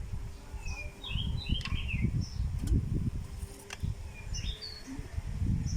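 Birds chirping in short, high calls several times, over irregular low rumbling and a couple of sharp clicks.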